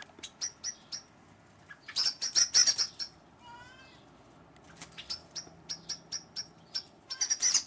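A mother bird giving rapid, repeated sharp alarm calls in bursts, one about two seconds in and another near the end, as it defends its nest from a cat.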